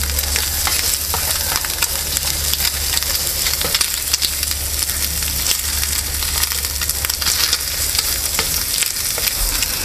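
Chopped bacon sizzling and crackling in a small frying pan over an alcohol burner, with a utensil stirring and scraping the pieces around the pan. The sizzle is steady, with many small spits and crackles through it.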